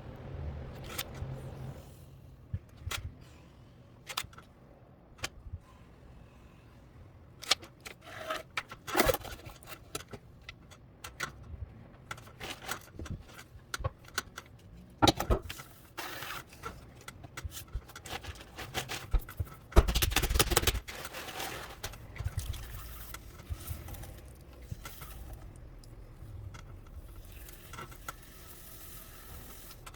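Pottery studio work sounds: scattered clicks, taps and scrapes of tools and clay being handled, with a louder scraping stretch about two-thirds of the way in over a faint low hum.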